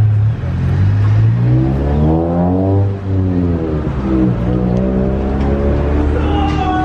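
A road vehicle's engine accelerating past, climbing in pitch, then dropping briefly twice as it changes up through the gears before running on steadier.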